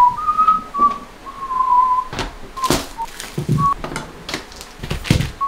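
A person whistling a short tune of held notes, with several sharp knocks and clatters in between.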